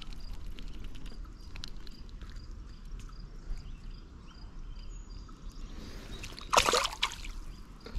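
A small bass released back into the river, hitting the water with one short splash about six and a half seconds in. Before it, faint clicks, a low wind rumble and a faint high chirp repeating about twice a second.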